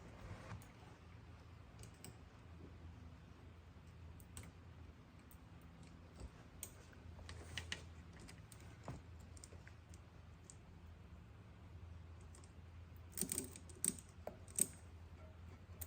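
New bicycle chain clicking and clinking as it is handled and worked onto the e-bike's drivetrain: scattered clicks, with a quicker cluster of clicks near the end. A faint steady low hum runs underneath.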